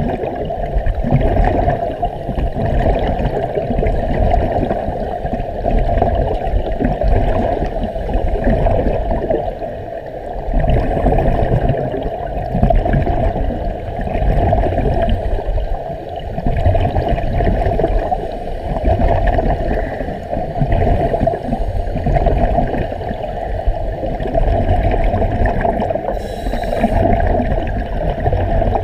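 Underwater sound picked up through a camera's waterproof housing: a steady muffled rush of water with the bubbling of scuba regulators, swelling and fading every few seconds with the divers' breathing.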